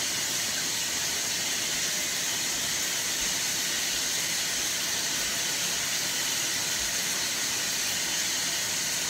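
Shower water running behind the curtain, a steady, even hiss of spray.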